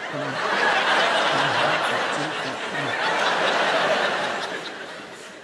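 Theatre audience laughing at a comedian's punchline. The laughter swells soon after the start, rises again about three seconds in, then dies away near the end.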